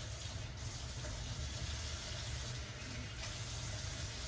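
Kitchen tap running steadily into a metal sink.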